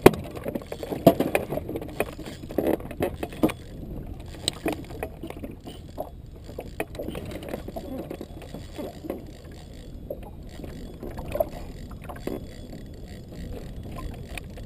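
Irregular knocks and clicks of a fishing rod and reel being handled in a canoe, with several loud knocks in the first few seconds and lighter ones after.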